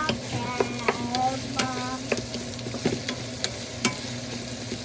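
Chopped onions sizzling in a frying pan as they are stirred with a wooden spatula, its strokes clicking and scraping irregularly against the pan.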